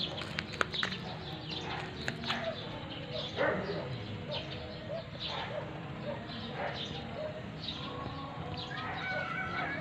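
Outdoor background with scattered short bird calls and a warbling call near the end, plus a few sharp clicks about half a second in.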